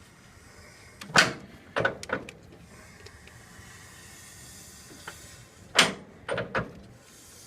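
Knocks and rattles of metal tools and parts being handled at an open Model T Ford transmission: a group of three sharp knocks about a second in, then another three near the end, with a faint hiss between.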